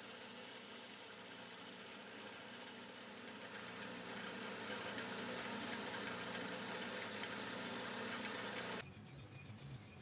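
Power sander running steadily, then cutting off abruptly near the end.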